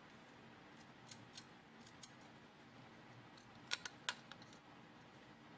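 Faint scattered clicks and taps of small screws, nuts and plastic kit parts being handled as a controller board is fitted to its plastic base, with a quick cluster of sharper clicks a little past the middle.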